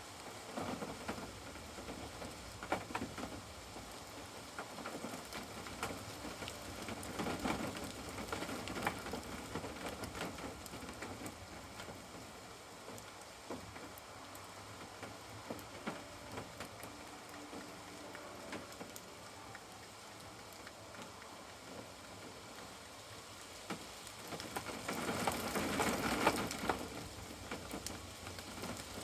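Rain falling on and around a caravan, an even hiss with many separate drops ticking. The rain swells louder twice, once about seven seconds in and more strongly near the end.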